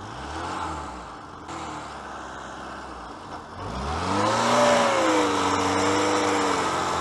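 Car engine revving up hard about four seconds in and held at high revs while the car is stuck in deep snow and being pushed out; a smaller rise in revs comes near the start.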